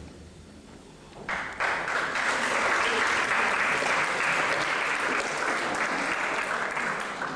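Audience applauding. The clapping starts about a second in, holds steady and dies down near the end.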